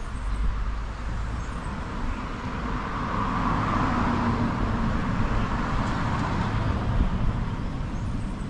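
A road vehicle passing; its tyre and engine noise swells about three seconds in and fades again, over a steady low rumble.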